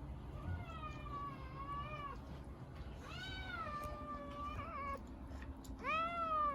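A cat meowing three times: two long, drawn-out meows, then a shorter, louder one near the end.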